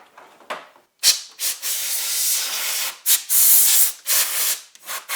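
Compressed shop air hissing from an air blow gun, blowing dust off around an engine's valve cover: a long blast about a second in, then several shorter bursts.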